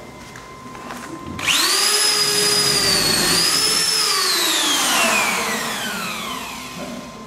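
Corded electric drill starting about a second and a half in, whining up to speed as it bores a hole through the painted temporary wall, then slowly winding down over a couple of seconds.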